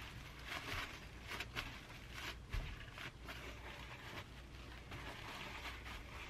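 Paper towels rustling and crinkling in short, irregular strokes as hands fold them around a block of tofu and press down to blot out its water.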